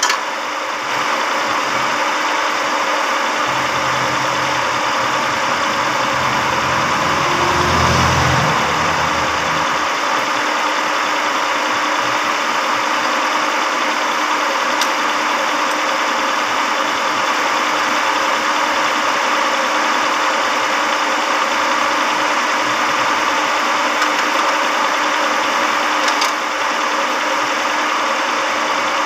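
Car's carbureted petrol engine idling steadily with the air cleaner off, being checked after a carburetor cleaning for a smooth idle. A deeper rumble swells for a few seconds and peaks about eight seconds in.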